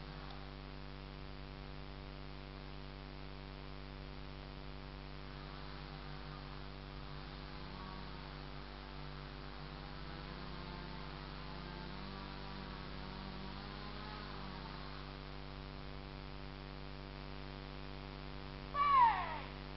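Steady electrical hum with faint wavering sounds in the middle. Near the end comes one short, loud sound that falls in pitch.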